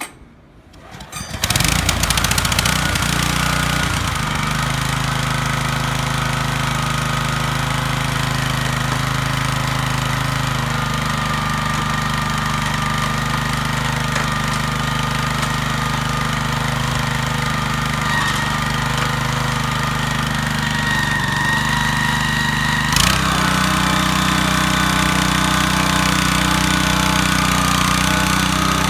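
Kubota TR90 walk-behind rotary tiller's 6.8-horsepower engine starting about a second in, then running steadily. About three-quarters of the way through comes a clunk, and the engine note shifts and grows a little louder as the rotary tines are set turning.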